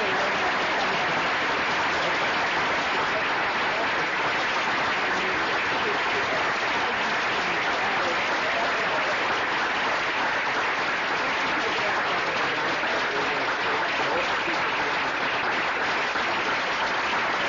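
Audience applauding steadily in a long, unbroken round of applause at the close of a talk.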